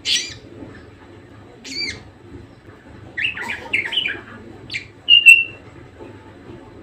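Budgerigar (Melopsittacus undulatus) calling: a few sharp, high chirps spaced apart, then a quick burst of chatter about three seconds in, and the loudest short call near the end. A low, steady hum runs underneath.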